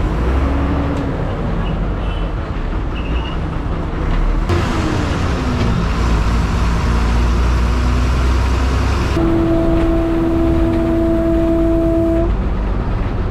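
City bus engine running and road noise heard from inside the bus, the engine pitch rising and falling as it pulls away and drives. About nine seconds in, a vehicle horn sounds one steady blast lasting about three seconds.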